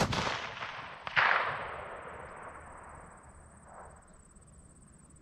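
A 6.5 Grendel bolt-action rifle shot rolling away across the range. About a second in, a second sharp report comes back and fades slowly over several seconds.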